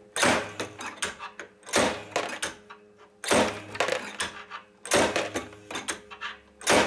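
Homemade murrini chopper's steel blades snapping through a thick glass rod: five sharp cracks about a second and a half apart, each followed by a scatter of small clicks as the cut glass slices fall.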